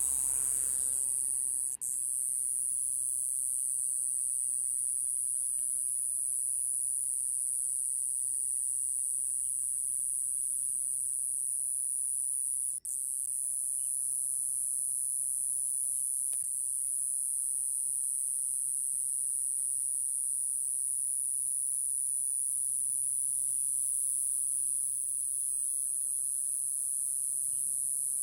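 Iwasaki grass cicada (Mogannia minuta) singing one continuous high-pitched buzz, broken by a few brief gaps.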